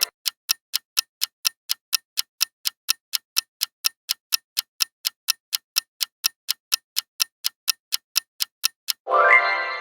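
Clock-tick countdown sound effect, sharp ticks about four times a second. About nine seconds in, a loud short pitched sound effect sweeps upward over the ticks.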